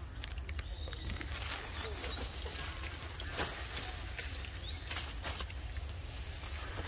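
Outdoor forest ambience: a steady high-pitched insect drone with a few short bird chirps, and a handful of sharp clicks or taps in the middle, over a low rumble.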